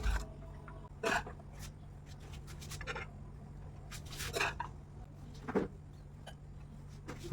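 A few short scrapes and knocks, about five spread over several seconds, over a steady low hum.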